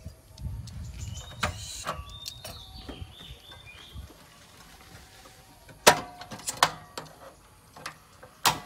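Portable butane gas stove's rotary igniter knob being turned, giving sharp single clicks: a loud one about six seconds in, two quicker ones just after, and another near the end. Some softer knocks and handling noise come in the first two seconds.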